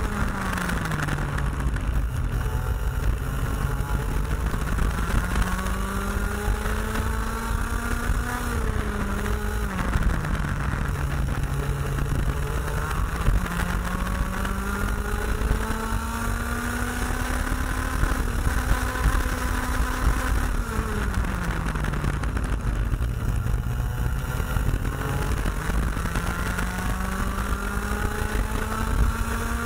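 IAME X30 125cc two-stroke kart engine heard onboard at racing speed: its pitch climbs steadily down each straight and drops sharply under braking for a corner, three times, over a steady low rumble.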